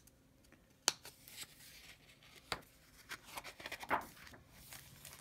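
A picture book's page being turned and handled: faint paper rustling with a few sharp clicks, the strongest about a second in.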